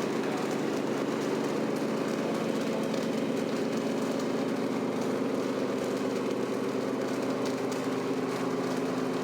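Steady, even engine-idle sound from a 1/14 scale Tamiya RC truck, with faint light clicks over it.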